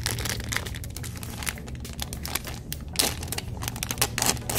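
Shiny plastic blind-bag packaging crinkling and crackling as it is handled and pulled open, with a louder burst of crackling about three seconds in.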